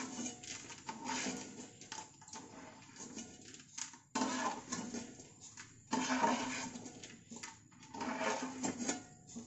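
Hot coconut oil sizzling in a frying pan as a batch of fried sev (gram-flour noodles) is stirred and lifted out with a ladle, the sizzle coming in uneven surges.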